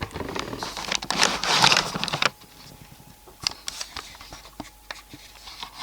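Rustling and scraping with many small clicks for about two seconds, then softer scattered clicks and taps.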